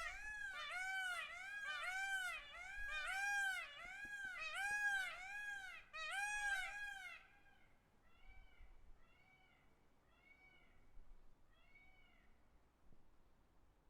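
A bird calling in a steady series of rising-and-falling pitched notes, about two a second. The calls are loud for about seven seconds, then go on fainter and more spaced out.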